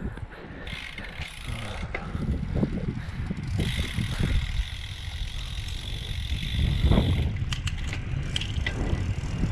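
Road bike coasting downhill: the freewheel hub's pawls give a steady high buzz that grows much louder about three and a half seconds in, over a low wind rumble on the microphone.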